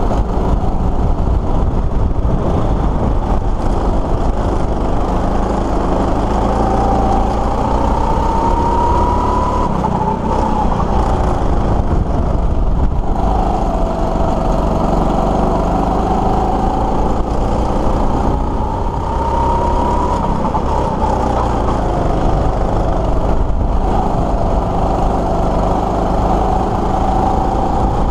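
Go-kart engine running at speed, heard from the driver's seat. Its pitch climbs and falls back several times as the kart accelerates down the straights and slows into the corners.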